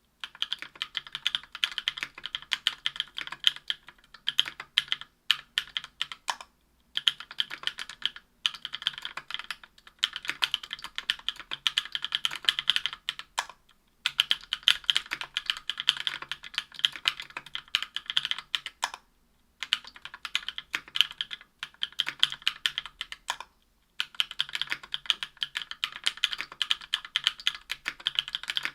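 Continuous fast typing on a Tofu 60% aluminium-case keyboard with lubed Durock Cherry Blossom 65 g linear switches and GMK keycaps: rapid key clacks in long runs, broken by a handful of short pauses.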